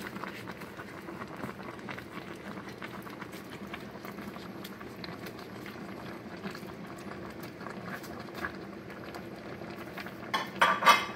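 Vegetable soup simmering and bubbling in a stainless steel pot while a spoon stirs leafy greens into the broth, with light scraping and ticks. A brief burst of louder knocks comes near the end.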